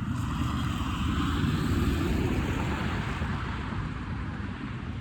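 Road traffic: a vehicle passing, its tyre and engine noise swelling to a peak about two seconds in and then slowly fading.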